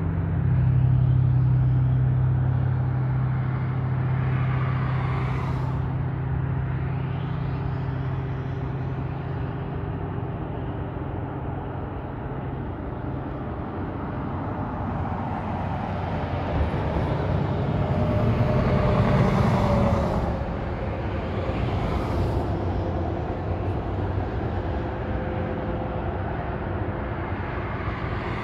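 Interstate highway traffic: a steady rush of cars and trucks passing, with a low engine drone that fades after about twelve seconds and one vehicle passing louder about two-thirds of the way in.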